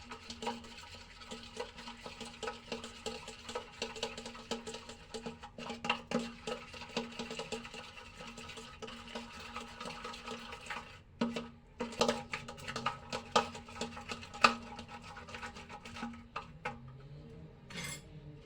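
Slime mixture being stirred and worked in a bowl, with many quick irregular clicks and scrapes, over background music with steady held tones.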